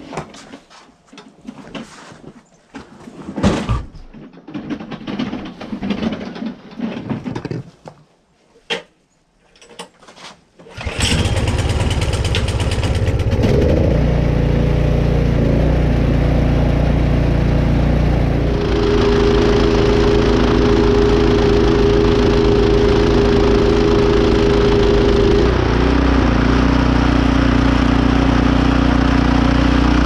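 Two-stage gas snowblower: scattered knocks and rustles of handling, then about eleven seconds in the engine starts and settles into a steady run, its tone changing twice in the later part.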